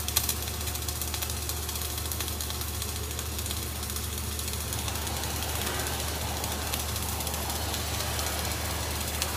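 Flux-cored arc welding: the arc gives off a steady hiss, with a constant low hum underneath.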